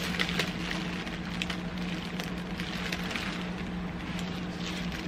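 Rustling and crackling of packing material being rummaged in a cardboard box: foam packing peanuts, plastic wrap and a mailer envelope being pulled and shifted, with scattered sharp clicks. A steady low hum runs underneath.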